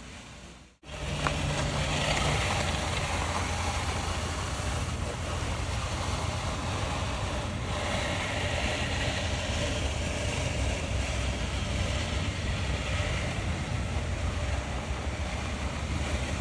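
Gravel in a karesansui dry landscape garden being raked: a steady scraping hiss that swells and eases in long strokes, over a low steady rumble. It starts about a second in.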